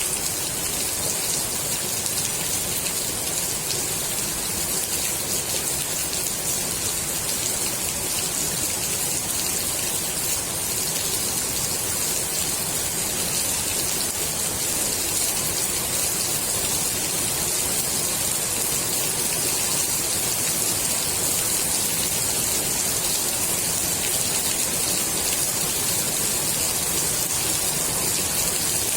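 Steady rain falling onto the water of a swimming pool, an even, unbroken hiss that is brightest in the high treble.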